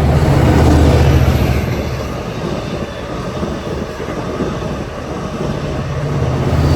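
Long Island Rail Road train passing, with a rumble and rushing rail noise. The rumble is loudest about a second in, eases, and swells again near the end.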